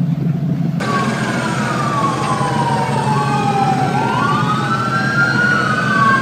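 Police sirens wailing, at least two at once, their pitches rising and falling and crossing each other; they cut in abruptly about a second in, before which a steady low hum is heard.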